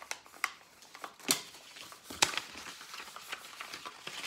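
Construction paper rustling and crinkling as it is rolled into a tube by hand, with a few sharp clicks and taps, the loudest a little past two seconds in.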